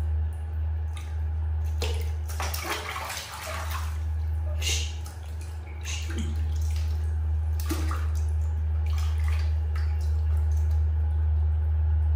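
Water splashing and sloshing in a plastic tub as a baby macaque is bathed and moves about in it, in irregular bursts, over a steady low hum.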